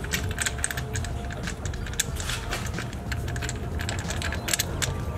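Irregular light metallic clicking and clinking of hand tools and parts being handled under a truck's engine, over a steady low hum.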